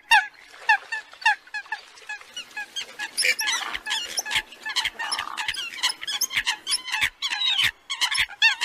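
A lure recording of Eurasian coot calls made for attracting coots. Short, sharp calls come about three a second at first, then about two seconds in they turn into a denser, overlapping chatter of several birds.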